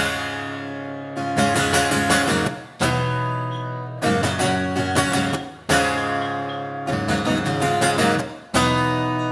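Acoustic guitar strumming an instrumental passage: single chords struck about every second and a half, each left to ring and fade, some cut short just before the next one.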